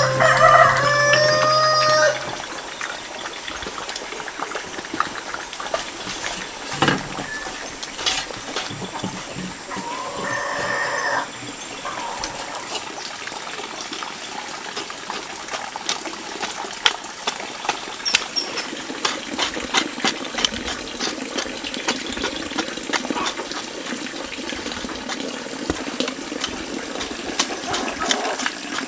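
Music stops about two seconds in. After it come outdoor sounds of garden work: scattered light knocks and scrapes that grow more frequent near the end, with a chicken calling once, about ten seconds in.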